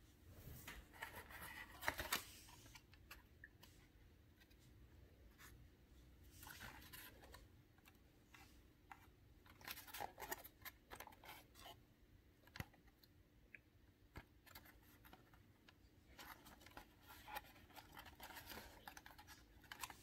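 Near silence with faint handling noise: scattered light scratches and clicks from a hand touching the 3D puzzle buildings, the loudest about two seconds in, over a faint steady hum.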